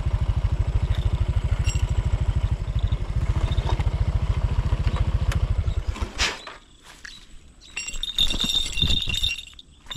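Small single-cylinder motorcycle engine, a Honda Supra X 125, running steadily with an even beat, then switched off about six seconds in. Light metallic jingling follows near the end.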